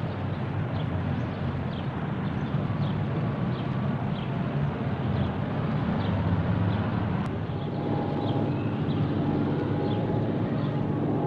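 Outdoor city ambience: a steady rumble of traffic with short high chirps repeating every second or so. A click about seven seconds in, after which a low steady hum joins the rumble.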